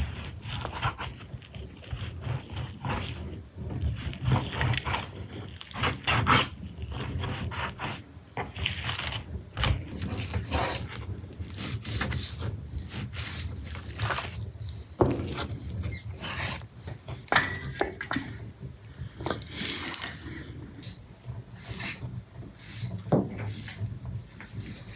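Irregular rubbing and scraping strokes on a hard surface, with occasional sharper knocks.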